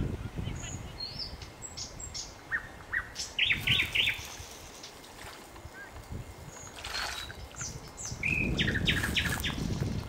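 Nightingale singing in separate phrases of quick repeated notes, one about three seconds in and another near the end. A low rumble comes in under the second phrase.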